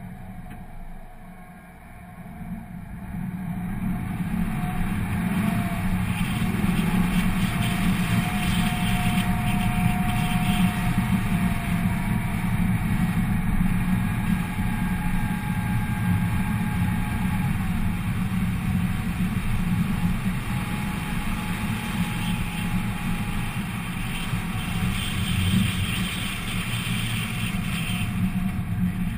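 2004 Pontiac GTO's LS1 V8 with JBA shorty headers, quiet at a stop at first, then pulling away about two seconds in and running steadily on the move, heard through a waterproof camera case.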